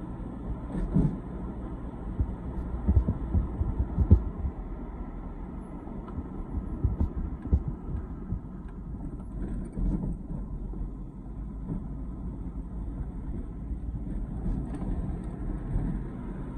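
Road and engine noise heard inside a moving car's cabin: a steady low rumble with occasional short low thumps.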